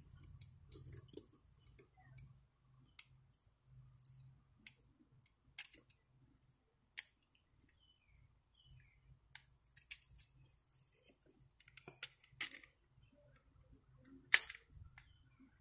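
Cartridges being pressed one at a time into a Smith & Wesson M&P .40 pistol magazine: faint, irregular clicks about every second, with a louder clack near the end as the pistol is handled.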